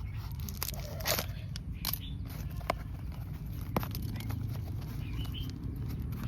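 Packaging being opened by hand: scattered crackles and sharp clicks of plastic and paper being handled, over a steady low hum.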